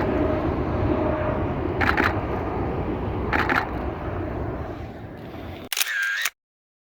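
A Canon 5D Mark III's shutter firing two short bursts of continuous shooting over the steady rumble of a jet airliner's engines on takeoff, which slowly fades. A brief different sound comes near the end, then the audio cuts to silence.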